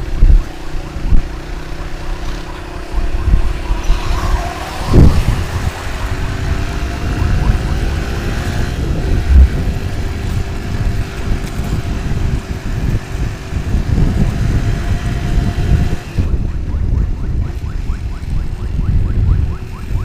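Motorcycle engine running at road speed with heavy wind buffeting on the microphone, and a brief loud thump about five seconds in.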